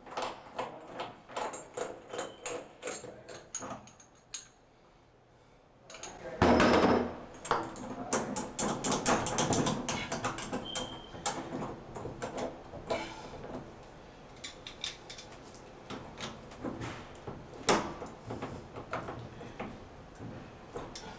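Metal clicking and clattering of a tub socket wrench working the shower diverter stem out of an old three-handle tub and shower valve, with a louder clatter about six seconds in.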